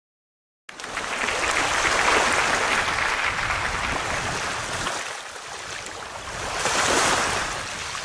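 Ocean surf washing in, starting abruptly out of silence about a second in and swelling twice.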